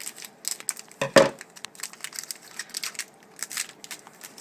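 Foil hockey-card pack wrapper being torn open and crinkled by hand: a run of quick crackles and rustles, with one louder burst about a second in.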